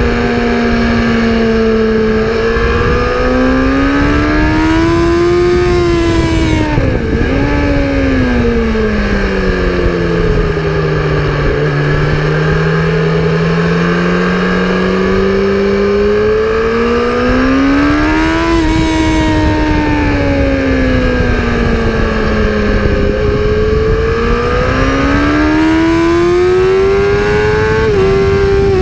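A vehicle's engine running hard on a race circuit, its pitch climbing and falling over several seconds as it accelerates and slows. The revs drop sharply about a quarter of the way in, again about two-thirds in, and near the end. A steady rushing noise runs under it.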